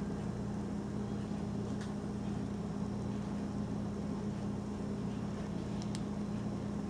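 Steady low mechanical hum with an unchanging pitch, and a couple of faint ticks about two and six seconds in.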